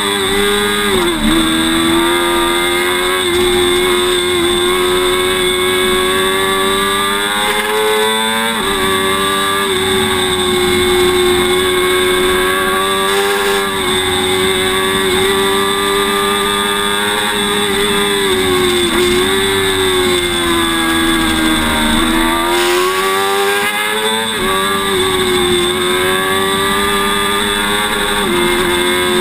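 Sport motorcycle engine at high revs around a race track, its pitch held mostly steady, sagging as the bike slows for corners and jumping up sharply a few times as it is downshifted.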